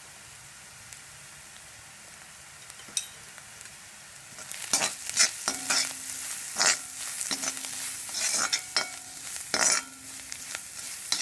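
Chopped onion and garlic sizzling softly in oil in an iron kadai. From about four and a half seconds in, a perforated metal ladle scrapes and stirs them against the pan in repeated, louder strokes.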